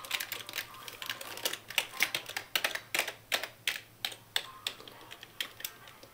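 A baby slapping and pressing the keys of a split ergonomic computer keyboard with both hands, the keys clattering in an irregular run of clicks. The clicks come thick and fast for the first four seconds or so, then thin out.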